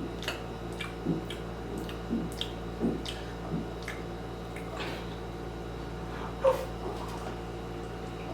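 Quiet throat and mouth sounds from a person straining to burp on command without managing it: small clicks, a few short low throat sounds, and a slightly louder one about six and a half seconds in.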